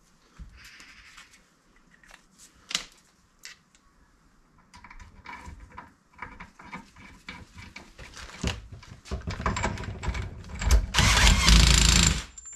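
Small metal parts clicking and being handled, then an impact wrench (nut gun) runs in one rattling burst of about a second and a half near the end, nipping up the ball-pin retainer on a classic Mini front swivel hub over its shim pack.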